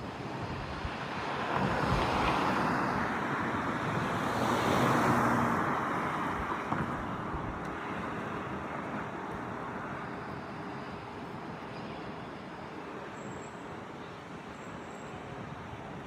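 Road traffic noise: a rushing sound that swells twice in the first six seconds, as vehicles pass, then settles to a steadier, fainter hum.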